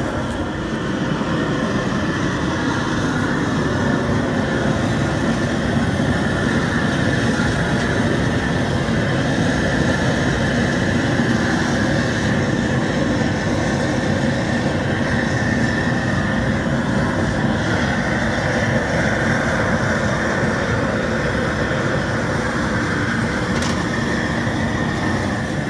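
Propane jet burner under a crawfish boil pot, roaring steadily at full flame.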